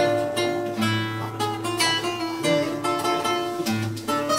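Nylon-string classical guitar played solo: a plucked melody over a bass note that comes back every second or so. This is the instrumental introduction to an enka song, before the vocal comes in.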